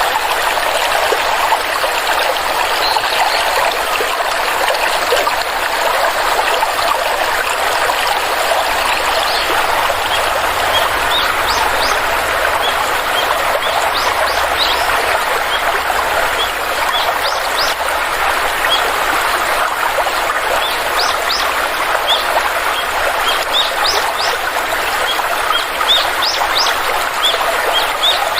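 Water flowing in a stream with a steady rush, while short, high bird chirps come in again and again from about a third of the way through.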